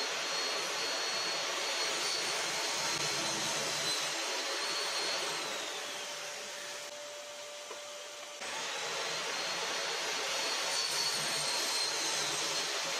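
An electric power tool's motor running steadily with a high whine that sags slightly in pitch partway through and then recovers. The level jumps up abruptly about two-thirds of the way in.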